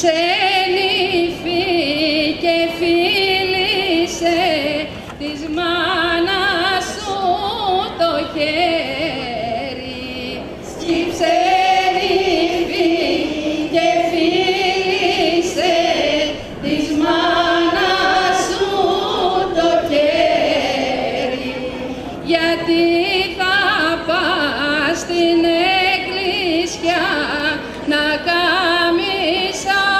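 Women singing a traditional Kalymnian wedding song in Greek. The melody wavers along in long phrases with brief breaks between them, about every five to six seconds.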